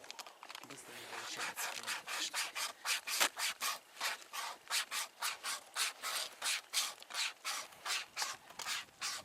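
Hand-pulled string saw (wire saw) rasping back and forth through wood in quick, even strokes, about three a second, starting up about a second and a half in.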